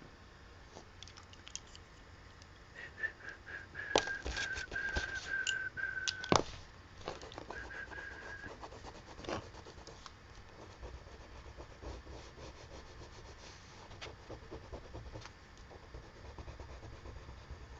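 Colored pencil scratching and rubbing on paper, with small clicks and taps. A high, steady whistle-like tone is held from about three seconds in to about six, and again briefly near eight seconds, with a few sharp taps during it.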